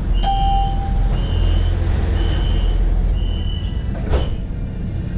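Door-closing warning beeper on an Alstom Citadis low-floor tram: a high beep repeats about once a second, with a short lower tone near the start. The beeping stops and a single thud follows about four seconds in, as the doors shut. A steady low hum from the tram runs underneath.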